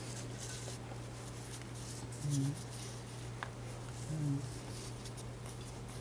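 Steady low electrical hum in a small room, with two brief murmured hums from a man a couple of seconds apart and a faint tick between them.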